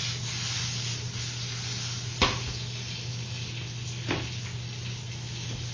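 Food sizzling steadily in a frying pan, with two sharp knocks, about two seconds in and again about four seconds in.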